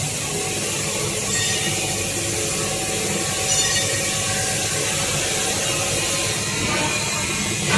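Coil nail welding and coiling machine running, a steady, dense mechanical noise that holds at one level throughout.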